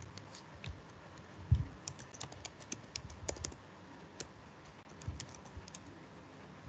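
Computer keyboard keys being typed: a quick run of keystrokes about two to three and a half seconds in, with a few scattered keystrokes after. One dull thump about one and a half seconds in is the loudest sound.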